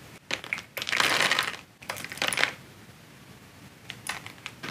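Fine grains of rice poured a little at a time into a small bag, in three short pours over the first couple of seconds, then a few faint clicks near the end.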